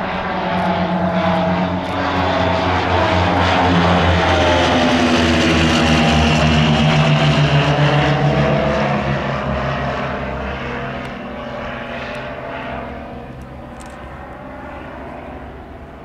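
Tecnam P2006T twin-engine propeller plane flying overhead, its two Rotax four-cylinder engines droning. The sound grows louder as it approaches, drops in pitch as it passes over, then fades as it flies away.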